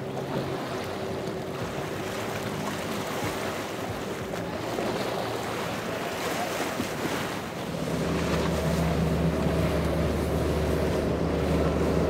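Outboard boat engines running through choppy inlet water, with the wash of waves and spray and wind on the microphone. About eight seconds in, a louder, lower engine drone takes over as another boat runs by.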